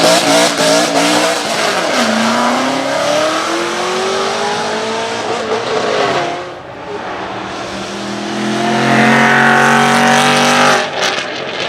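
Aston Martin Vantage AMR Pro's engine accelerating hard, its pitch rising, dropping sharply at an upshift about two seconds in, then climbing again in a long pull. The engine goes quieter for a couple of seconds, runs loud again, and lifts off near the end with a few sharp exhaust pops.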